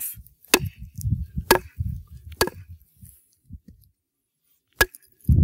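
Wooden baton striking the spine of a Bark River Bravo-2 knife as it is driven down into a log round to split it: three sharp knocks about a second apart, then a fourth after a short pause.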